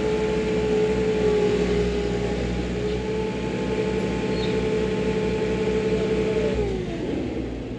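Compact construction machine's engine running at high revs with a steady whine, then throttling down with a falling pitch about six and a half seconds in and settling to a lower, quieter run.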